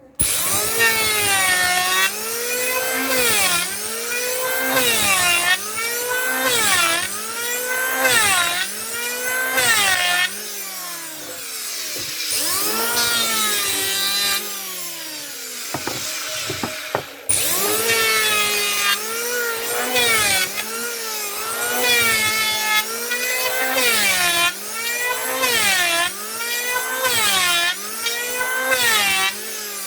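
Power wood planer cutting wood, its motor pitch dipping under load and recovering about once a second as each pass is made. There is a short lull about sixteen seconds in before it bites into the wood again.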